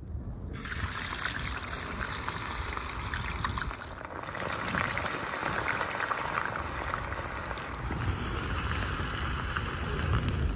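Crinkle-cut potato fries deep-frying in a large pan of hot oil: a dense sizzle full of rapid crackling that starts about half a second in, over the low rumble of an open wood fire.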